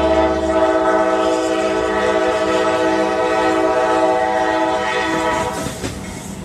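A train horn sounding one long steady chord of several notes, held about six seconds and fading away near the end.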